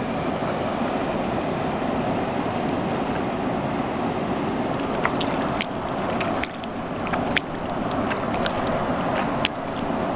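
Steady rush of a fast-flowing river against a rocky bank. From about halfway, a handful of short, sharp splashes from hands being rinsed in the shallow water.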